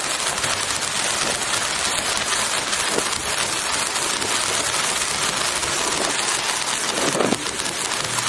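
Ground fountain firework spraying sparks: a steady hiss with fine crackling, heard played in reverse.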